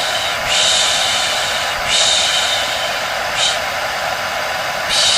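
A hair dryer running steadily, with a person's rhythmic 'shh' shushing laid over it four times, to soothe a baby to sleep.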